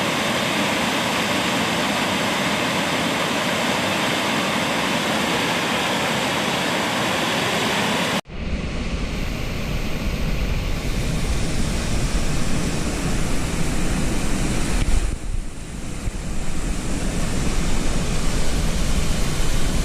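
Steady rushing roar of a river waterfall. About eight seconds in it cuts off abruptly and resumes with a heavy, uneven low rumble of wind buffeting the microphone over the rushing water.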